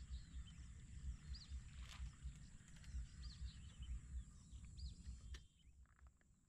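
Wind buffeting the microphone with small birds chirping in the background, and two sharp clicks. The wind drops away about five seconds in, leaving the birdsong.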